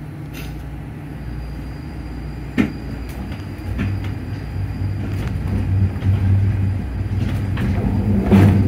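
Cabin sound of a Skyrail suspended car pulling away: a steady low rumble with a hum that grows louder as it picks up speed. A sharp clack comes about two and a half seconds in, with a few lighter clicks and a louder rattle near the end.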